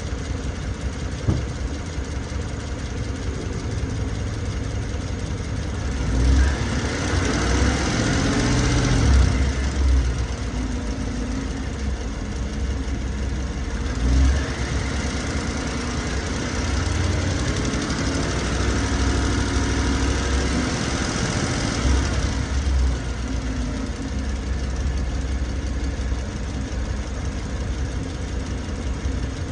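Car engine running steadily, growing louder and fuller twice, briefly about a fifth of the way in and again around two-thirds of the way in, over a constant low rumble. This is the noise the owner has noticed since a dealer visit.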